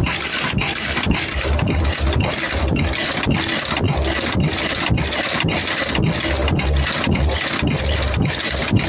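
Mask earloop welding machine running at production speed: a steady rushing mechanical noise that breaks rhythmically nearly three times a second, with low pulsing thumps as it cycles.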